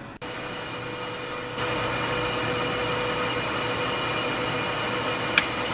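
Milling machine spindle running steadily while a spiral-point tap is power-fed into a hole in an aluminium part. The cutting noise gets louder about a second and a half in, and there is one sharp click near the end.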